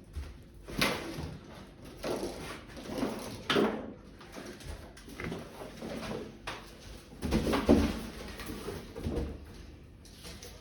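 Irregular scraping, rubbing and knocking as a new washing machine and its packaging are handled and shifted, with the loudest bursts about a second in, midway and about three-quarters of the way through.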